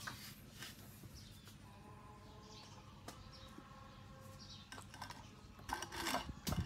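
Light clicks and taps as a puppy is hand-fed slices of cooked carrot and potato, loudest near the end as it takes food from a gloved hand at the plate. A faint high tone is heard briefly about two seconds in.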